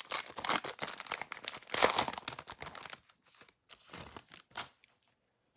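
Foil wrapper of a Topps Holiday trading-card pack being torn open and crinkling, loudest about two seconds in, followed by a few lighter rustles and clicks.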